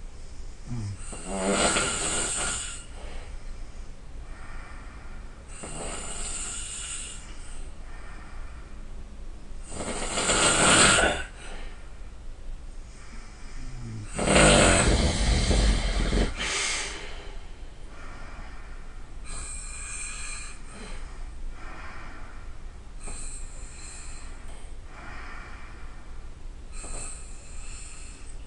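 A person snoring loudly, one snore with each breath about every three to four seconds. The two loudest snores come about ten and fourteen seconds in.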